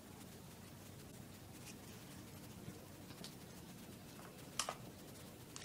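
Quiet room tone with faint clicks and rustles of small makeup items being handled, and a sharper double click about four and a half seconds in.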